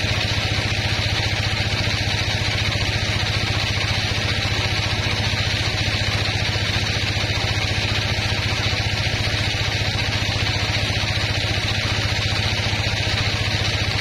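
Large vertical band sawmill running steadily: a constant low hum from its drive with a steady hiss from the band blade over it.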